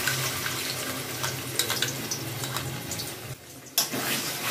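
Blended masala paste of fried onion, tomato and curd sizzling with a steady hiss as it is scraped into hot oil in a kadai. Near the end the hiss drops off, a spoon knocks sharply against the pan, and stirring and scraping begin.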